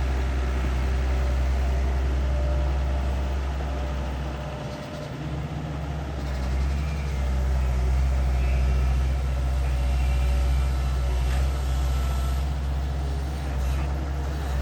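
Long-reach IHI excavator's diesel engine running steadily under working load. It eases off briefly about five seconds in, then picks back up.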